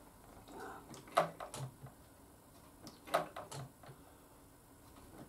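A few light, sharp clicks from hand work on a motorcycle's front brake while bleeding the brake fluid, at the brake lever and the caliper bleed nipple. They come in two pairs about two seconds apart, a louder click followed by a softer one.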